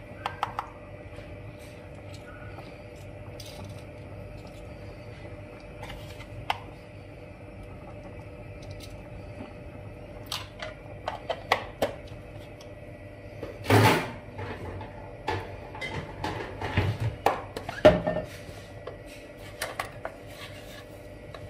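A spoon stirring a simmering stew in a stainless steel Saladmaster pot: scattered clinks at first, then a run of clinks and knocks against the pot through the second half, over a steady faint hum.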